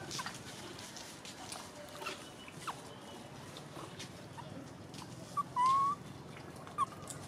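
Young macaque giving short, clear coo calls. A brief one comes first, then the loudest, a longer call rising slightly in pitch about two-thirds of the way through, then another brief one near the end, over a faint background with small clicks.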